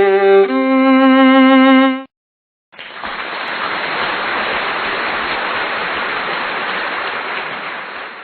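A violin plays two long held notes with vibrato, stopping about two seconds in. After a short pause a steady rushing noise starts and fades out near the end.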